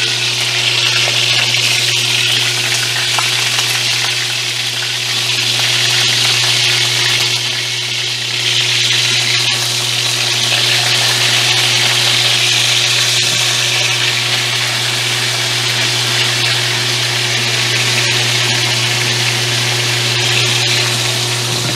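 Marinated chicken pieces sizzling as they fry in hot oil in a wok, the sizzle swelling and easing, with a few light clicks as tongs move the pieces. A steady low hum runs underneath.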